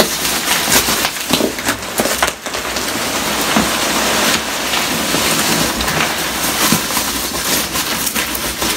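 Bubble wrap and cardboard rustling and crinkling as hands dig through a packed shipping box, a dense crackle of many small clicks.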